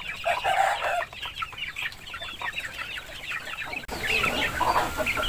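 Chickens clucking and calling, many short high calls overlapping.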